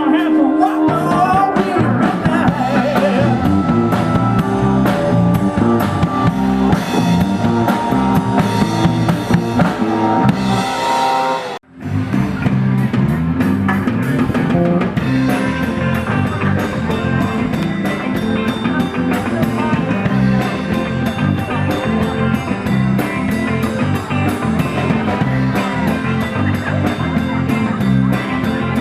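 Live rock band playing an instrumental passage on drum kit and guitar. The sound cuts out for an instant a little under halfway through, then the music resumes.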